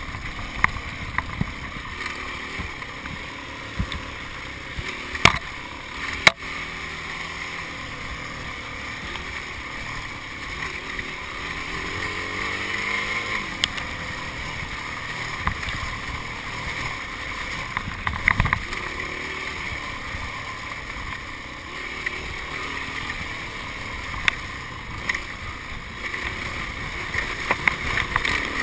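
Yamaha enduro motorcycle's engine running and revving as it rides over a rough trail, with scattered sharp knocks from the bike hitting stones and bumps, two loud ones about five and six seconds in.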